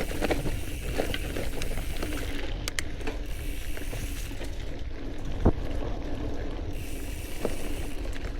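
All-City Gorilla Monsoon gravel bike riding singletrack: its 27.5 x 2.1 Teravail tyres rolling over dirt with a steady low rumble, and scattered clicks and rattles from the bike over bumps, with one sharper knock about five seconds in.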